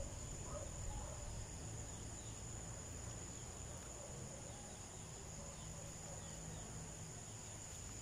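Insects chirring in a steady, high-pitched drone, over a faint low rumble of background noise.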